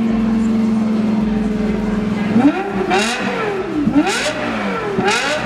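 Lexus LFA's 4.8-litre 1LR-GUE V10 running at a steady speed, then revved three times in quick blips, its pitch rising and falling with each.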